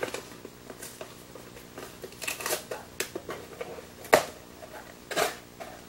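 Cardboard box and paper packing being opened by hand: irregular rustling with several sharp crackles, the loudest about four seconds in.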